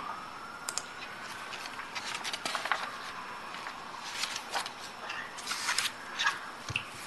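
Scattered light clicks and taps of computer keys over the faint hiss of an open microphone, coming irregularly and in small clusters.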